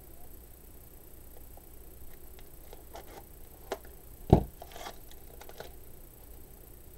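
Handling sounds of a spool of wired ribbon and a pair of scissors on a cutting mat: scattered light clicks and a brief rustle of ribbon, with one dull thump a little over four seconds in.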